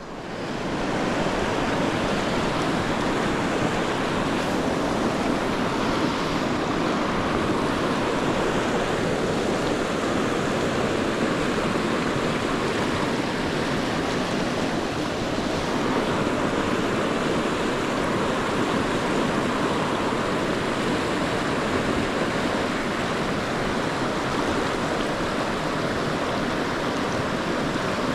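Rushing river water: a fast, turbulent tailwater river running high over riffles and rapids, a steady wash of noise that swells up about a second in.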